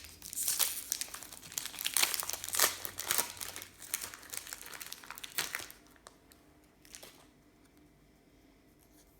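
Plastic trading card pack wrappers crinkling and crumpling as they are handled, with a little tearing; the crinkling stops about six seconds in, leaving a few faint clicks.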